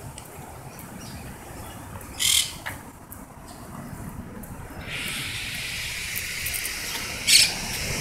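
Monk parakeets at their stick nest on a utility pole, giving two short, loud high calls about five seconds apart over steady traffic hiss.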